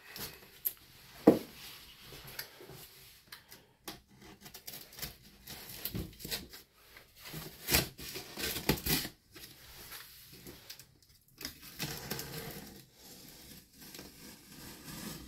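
Box cutter slicing through packing tape on a cardboard box, with the tape pulled and torn back and the cardboard scraping under the hands: irregular scrapes, rips and clicks, the sharpest about a second in and twice around eight to nine seconds in.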